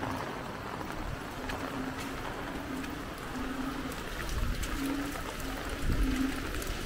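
Floodwater sloshing and trickling, with a low hum that comes and goes in short stretches.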